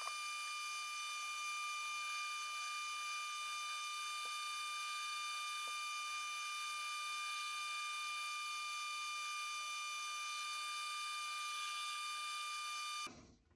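Metal lathe running and turning a steel drive pulley under a light cut: a steady high-pitched whine with overtones that stops abruptly near the end.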